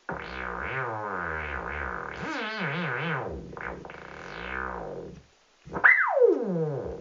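Electronic sound generator making synthesizer-like tones whose pitch warbles and glides for about five seconds. After a brief pause comes a quick upward sweep that falls away in a long downward glide, followed by another short falling tone near the end.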